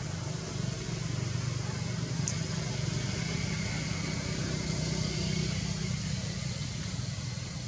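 Steady low rumble with a hiss over it, with one brief high squeak about two seconds in.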